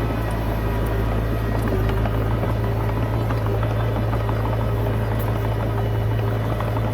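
Komatsu D20P bulldozer's diesel engine running steadily, a constant low drone with a dense rattle above it.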